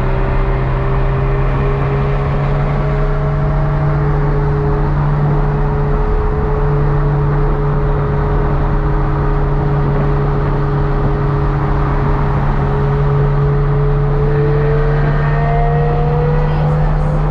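Car engine and road noise at a steady cruise: a constant low drone whose pitch creeps slightly upward over the last few seconds as the car picks up a little speed.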